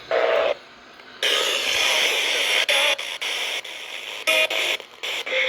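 Radio receiver hissing with static from a weak broadcast signal. The hiss comes in loud about a second in and keeps breaking up, with brief scraps of the broadcast voice showing through.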